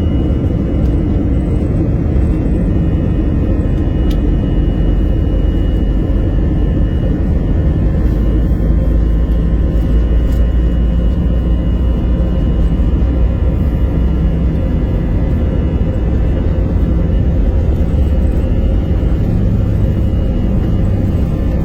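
Steady, loud low rumble of an Airbus A321 airliner's engines and airframe, heard from inside the passenger cabin, with faint steady high tones over it.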